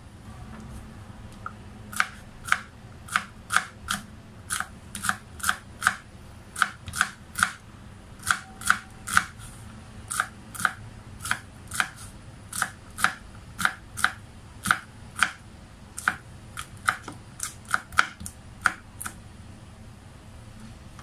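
Chef's knife chopping string beans on a wooden cutting board: a run of sharp knocks, about two a second, starting about two seconds in and stopping near the end.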